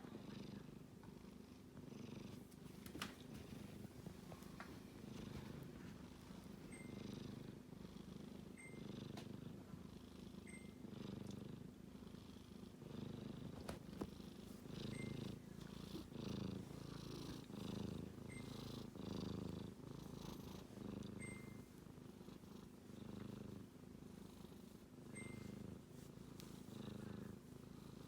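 Sleeping kitten snoring, a soft low rasp that swells and fades with each breath in a steady rhythm, about once a second.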